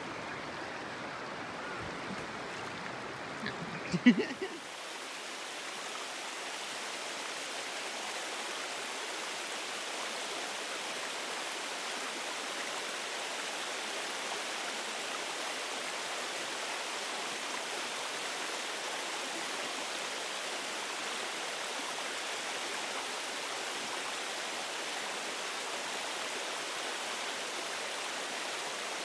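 Steady rushing of a river running over rocks at a small waterfall. A brief loud sound about four seconds in stands out above it, and afterwards the rushing fills in brighter and stays even.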